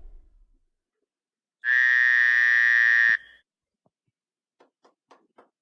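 A single flat, steady buzzing tone lasting about a second and a half, followed near the end by five soft, evenly spaced taps.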